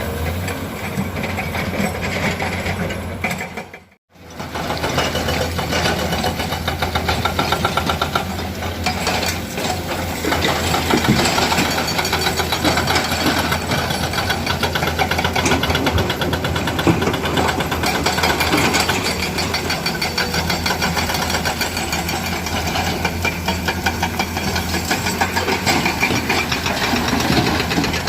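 Komatsu PC200 excavator's diesel engine running under load, with clattering knocks of rock being dug and loaded growing busier from about nine seconds in. The sound cuts out completely for a moment about four seconds in.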